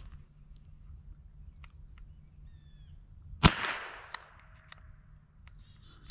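A single shot from a scoped rifle fired at a squirrel in a tree, a sharp crack about three and a half seconds in with a short ring-out after it. A few high bird chirps come before it.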